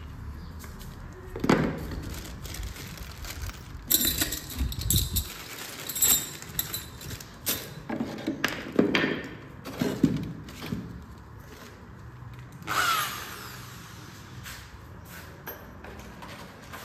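Irregular knocks and clatter of wooden pieces and hand tools being handled, a dozen or so sharp knocks spread through the first ten seconds, with a longer scrape near the end.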